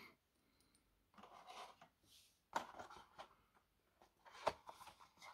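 Faint handling noise of a thin cardboard product box being picked up and turned in the hands: soft rubbing and rustling, with two sharper taps of the card.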